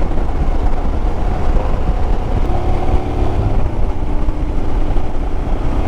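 Royal Enfield Himalayan's single-cylinder engine running at highway cruising speed, with steady wind rumble on the rider's microphone.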